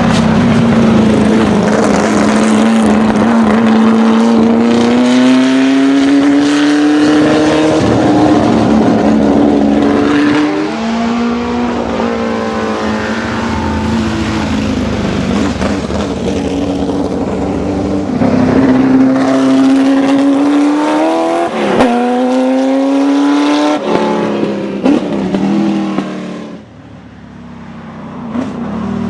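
Serenissima MK168's 3-litre V8 racing engine driven flat out, its pitch rising and dropping back abruptly several times as it changes up through the gears. Near the end the sound falls away sharply and then builds again.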